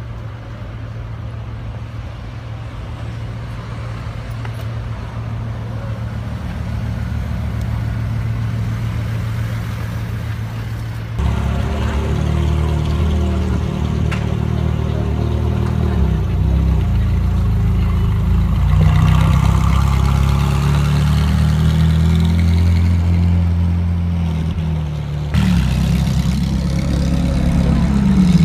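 Supercar engines in three clips. First a low, steady idling hum from a queue of cars that slowly grows louder. About eleven seconds in, a Ferrari 458 Speciale's V8 takes over, running and revving as the car pulls away, and from about twenty-five seconds in a Lamborghini Aventador's V12 revs up close, rising in pitch near the end.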